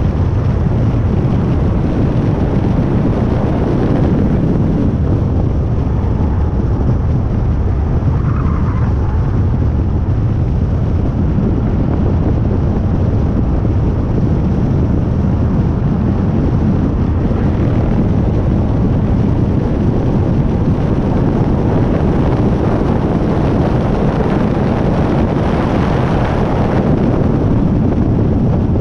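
Hyundai i30 N driving at speed, heard from a camera mounted beside its front wheel: steady wind buffeting on the microphone mixed with tyre and road rumble.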